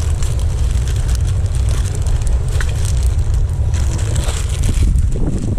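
Wind buffeting the microphone, a steady low rumble with a rushing hiss above it.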